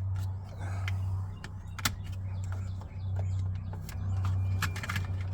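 Scattered sharp plastic clicks and taps as a window switch is pried and unclipped from its door-trim housing, over a steady low hum.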